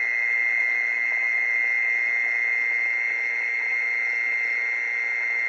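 Mole cricket song, a steady unbroken high trill, played through a loudspeaker as a lure to call mole crickets in.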